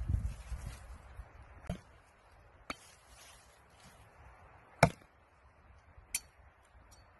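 A blade chopping into dry branches: four sharp, separate strikes about a second or more apart, the third, just before five seconds in, the loudest.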